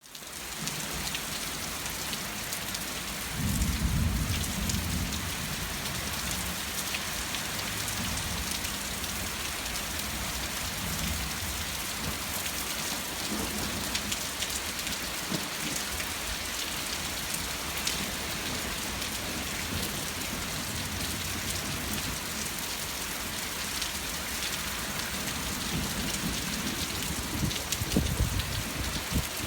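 Thunderstorm: steady rain falling, with low thunder rumbling in, loudest about four seconds in and again near the end.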